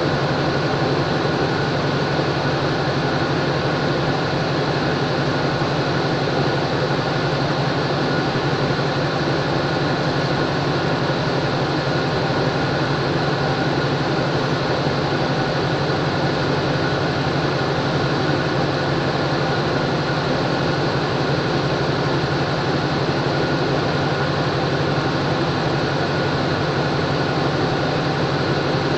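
Diesel locomotive idling while standing still, a steady engine hum with several constant whining tones above it and no change in pace.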